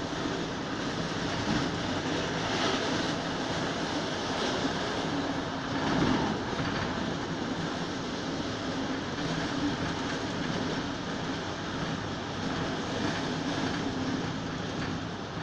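Passenger train running at speed, heard from inside the carriage: a steady rumble of wheels on the rails with a constant low hum, swelling louder briefly about six seconds in.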